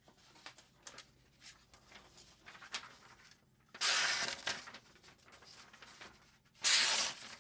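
A steel knife blade making two loud, short swishing strokes, one about four seconds in and one near the end, with faint ticks and light scraping before and between them.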